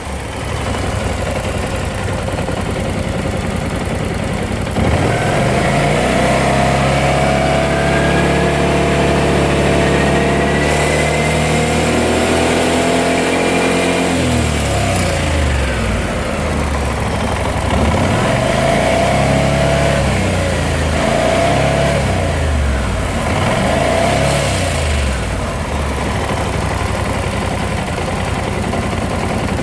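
BMW C600 scooter's parallel-twin engine running, revved up about five seconds in and held raised for several seconds, then dropping back and blipped several times. Its noise is what the owner puts down to the timing chain.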